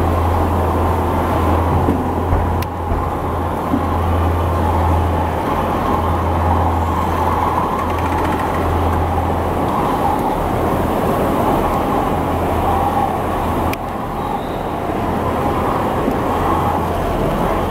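Sanicleanse handheld teat scrubber running steadily as its brushes clean and sanitise a cow's teats, over a continuous deep hum of milking-parlour machinery. Two brief sharp clicks, a few seconds in and near the end.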